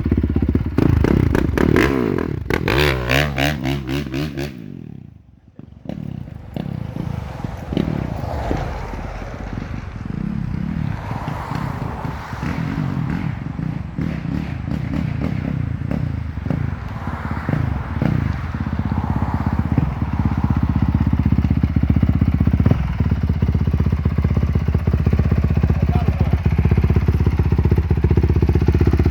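2020 Honda CRF450's single-cylinder four-stroke engine being revved, the pitch rising and falling quickly for the first few seconds. About five seconds in it falls away sharply for a moment, then runs on steadily, getting a little louder toward the end.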